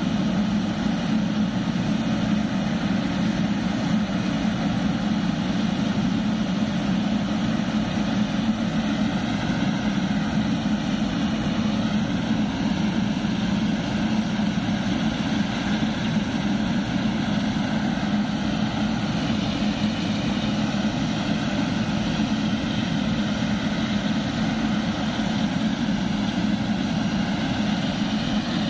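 Boeing 777-300ER's twin GE90 jet engines running steadily: a constant deep rumble and whine at an even level, with faint higher tones wavering slightly in pitch through the middle.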